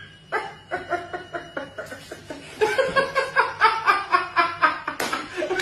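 Laughter: a run of quick, rhythmic laughing pulses that grows louder about two and a half seconds in.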